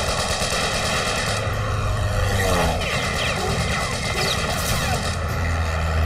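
Single-engine propeller fighter plane's piston engine droning steadily as it flies over, with sliding changes in pitch about halfway through.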